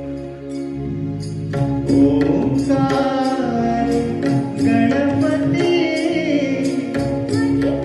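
A man singing a devotional-style Indian song into a microphone, his voice bending and sustaining notes over held accompaniment tones, with percussion strikes keeping a steady beat.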